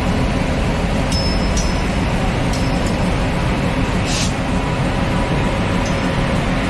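A train running along its track: a steady rumble with a few light metallic clinks about one and three seconds in and a short hiss about four seconds in.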